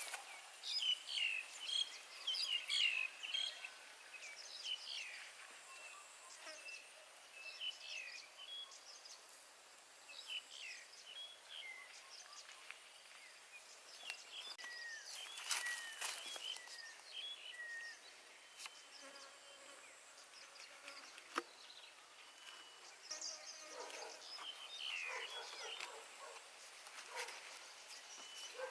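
Forest ambience: small birds chirping and calling in short, varied notes, some sliding down in pitch, with a few sharp clicks.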